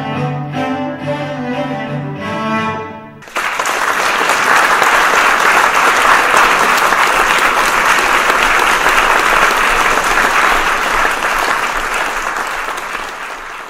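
Cello playing bowed notes for about three seconds, cut off abruptly by loud, steady audience applause that fades out near the end.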